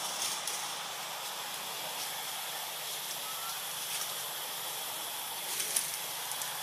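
Steady outdoor hiss of forest ambience, with a faint high steady tone running through it and a few brief clicks, the sharpest about three-quarters of the way through.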